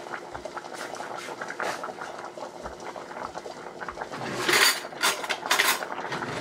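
Chicken broth boiling hard in a stainless steel saucepan of angel hair pasta, a steady bubbling crackle, with a few louder bursts about four to six seconds in.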